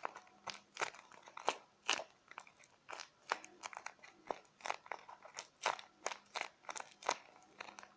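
A paper squishy stuffed with cotton balls being squeezed over and over, its paper crinkling and crunching in a quick, irregular series of faint crackles.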